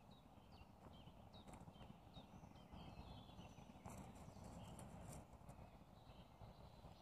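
Faint woodland birdsong, many short chirps and whistles from several small birds, over the soft crunch of footsteps walking a dry dirt path.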